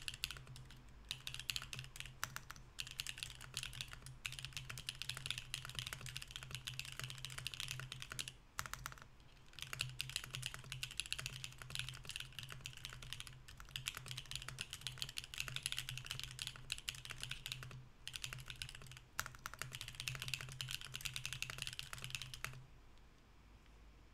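Fast, continuous typing on a Mercury65 mechanical keyboard with stock BSUN Anya switches in an aluminium plate and no foam: a dense clatter of keystrokes with brief pauses, a longer pause about nine seconds in, and the typing stopping a second or two before the end.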